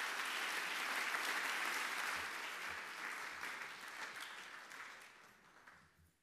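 Audience applauding, loudest in the first couple of seconds and dying away gradually toward the end.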